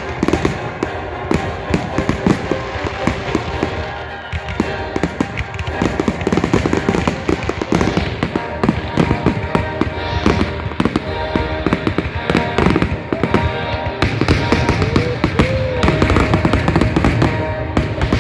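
Aerial fireworks shells bursting in rapid succession in a finale barrage, a dense stream of bangs and crackling, with music playing underneath.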